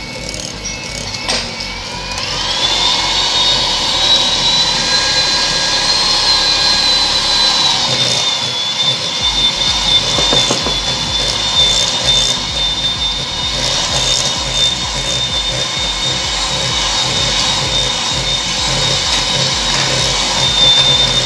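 Electric hand mixer running steadily, its beaters creaming margarine and sugar in a glass bowl. The motor whine rises in pitch about two seconds in as the mixer speeds up, then holds level.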